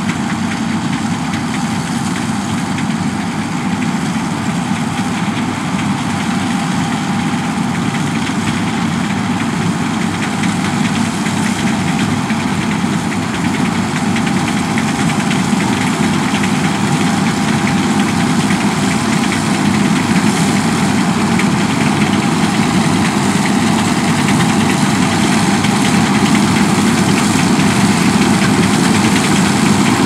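John Deere C670i combine harvester running steadily under load as it cuts wheat: a continuous engine and threshing drone. It grows gradually louder as the machine comes closer.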